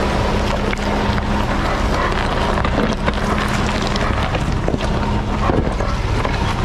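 Jeep driving slowly over a rocky off-road trail: the engine runs steadily under the rumble of tyres on rock and wind on the microphone, with scattered clicks and knocks.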